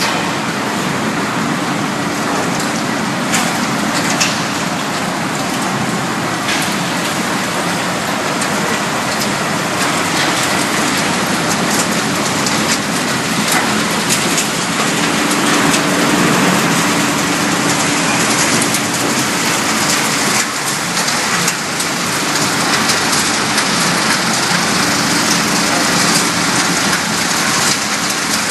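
Refrigerator recycling plant machinery running: a dense, continuous rattling hiss of shredded material moving through the line, with a faint steady machine hum underneath.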